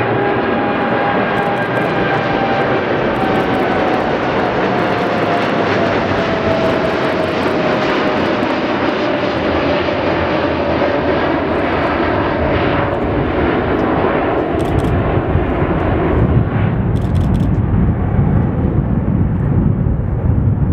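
A Boeing 747-8F's four GEnx turbofans at climb-out power: a loud, steady jet roar with a whine that slowly falls in pitch over the first half. In the second half the whine fades and a deep rumble grows as the jet flies away.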